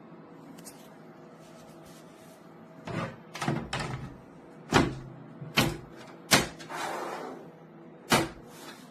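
A series of about seven sharp knocks and clicks, with a short rustle in the middle, like hard panels or parts being handled and set down, over a low steady hum.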